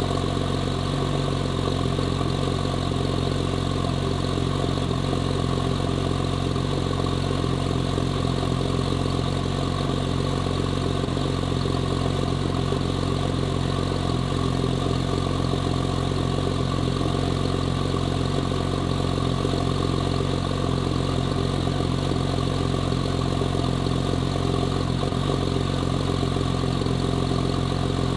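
RUF RT12's twin-turbo flat-six idling steadily in its cold-start warm-up, an even, unchanging idle with no revs.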